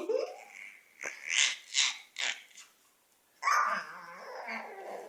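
Baby laughing in a run of short, breathy bursts, then a louder voiced laugh or squeal near the end.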